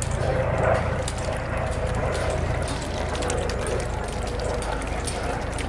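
Mute swans and mallards dabbling at floating feed pellets on the water: a rapid, irregular run of small clicks from their bills at the surface, over a low steady rumble.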